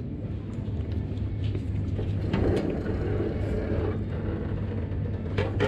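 A steady low hum, with rustling and handling noise from a jacket sleeve brushing across the body-worn camera about two to four seconds in.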